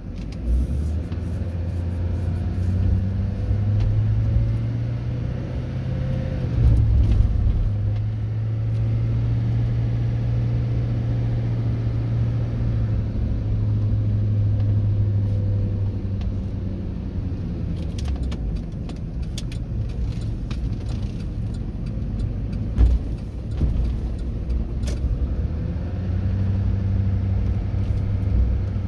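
Car engine and road noise heard from inside the cabin as the car pulls away from a traffic light and drives on: a steady low drone, with a few scattered clicks and rattles in the second half.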